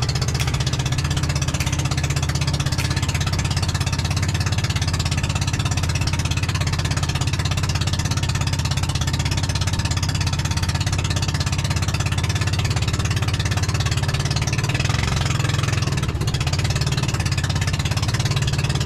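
Engine of a motorized outrigger boat (bangka) running steadily as the boat moves through the water, a loud, even, low drone with a fast pulse.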